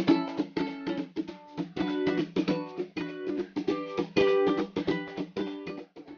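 Intro music: a quick, bright tune of rapidly plucked notes on a ukulele or guitar, cutting off at the end.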